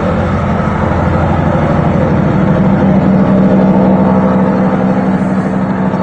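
Band's stage-intro recording played loud over a PA system: a steady, engine-like low droning rumble with a held hum.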